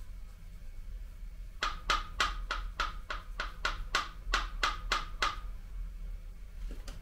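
A run of about fourteen sharp, evenly spaced metallic clicks, roughly four a second, from metal parts being worked by hand inside the side opening of a diesel engine block. They start about a second and a half in and stop a little past halfway, over a steady low electrical hum.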